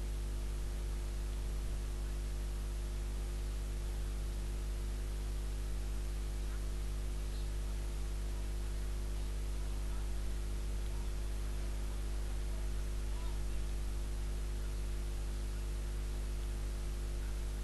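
Steady electrical hum with a constant hiss underneath, unchanging throughout, with no other sound.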